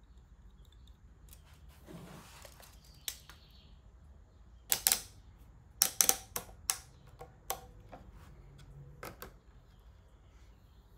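Sharp plastic clicks and clacks as a plastic spring clamp is handled and squeezed onto a freshly glued wooden handle against a cutting board on a workbench, with a light rustle first and the loudest clacks in a quick cluster about halfway through.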